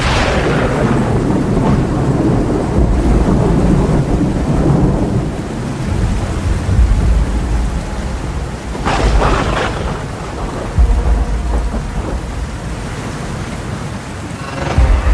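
Thunderstorm: steady heavy rain with rolling thunder, and two sharp thunderclaps, one right at the start and another about nine seconds in.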